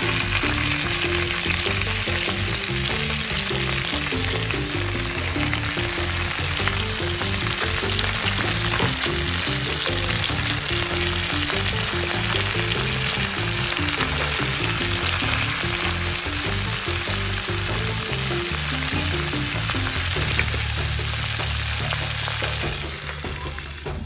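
Food frying in a pan: a steady sizzle that cuts in suddenly and drops away near the end, with background music underneath.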